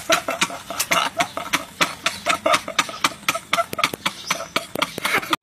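Men laughing hard in rapid bursts, stopping abruptly at the end.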